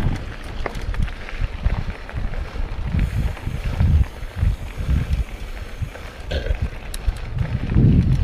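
Wind buffeting the microphone over the rumble of a mountain bike being ridden, with occasional sharp clicks and rattles.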